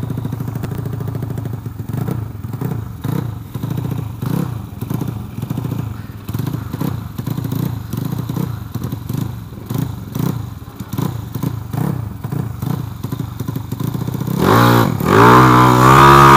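Modified two-stroke Vespa Sprint drag scooter with a 68 mm piston and carburettor, blipped repeatedly at the line, its revs rising and falling about once a second. About 14 seconds in it revs sharply up and launches under full throttle into a loud, steady high-revving run.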